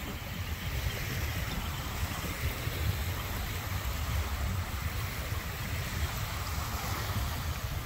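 Small waves breaking and washing up a sandy bay shore in a steady hiss, over a low, fluctuating rumble.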